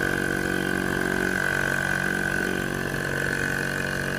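12-volt single-piston portable air compressor running steadily, with a high whine over its motor hum, as it pumps air into a flat car tyre.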